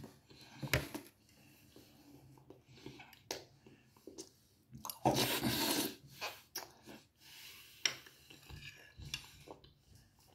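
A man chewing food with his mouth closed and eating from a spoon: soft, wet chewing with scattered small clicks and smacks, and one louder rush of noise about a second long about five seconds in.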